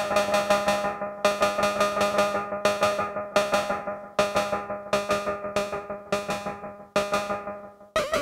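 Eurorack modular synthesizer patch, cross-modulated through a Doepfer A-138m matrix mixer in bipolar mode. It plays a run of sharp percussive hits, about two to three a second and unevenly spaced, each fading out over a steady pitched drone.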